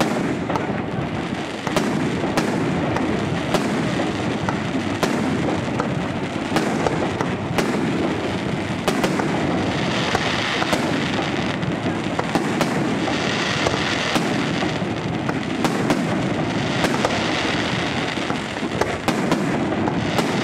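Fireworks display: aerial shells bursting one after another in sharp bangs, about one a second, over a continuous dense crackling that swells several times.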